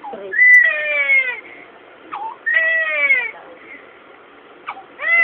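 Newborn baby crying hard during an injection: three wails, each about a second long and falling in pitch, with sharp gasping in-breaths between them.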